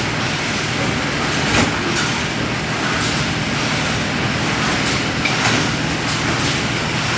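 Steady, loud running noise of a sugar-bagging machine and the factory machinery around it, with a low hum under it and a sharp knock about one and a half seconds in.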